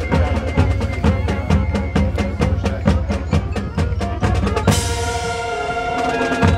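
Marching band drumline and front ensemble playing a fast, even drum passage. About two-thirds through, a sudden crash brings in a held, ringing chord, and the drums come back in near the end.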